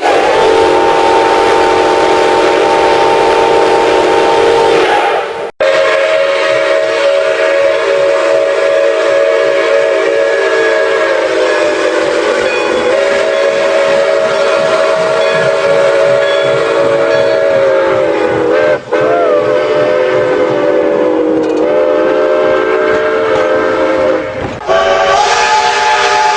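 Fictional multi-note train whistles, each blown as one long held chord. A first chord lasts about five seconds and cuts off sharply. A lower chord then sounds for most of the rest, with short breaks and a wavering bend in pitch about two-thirds of the way through, and a higher chord starts near the end.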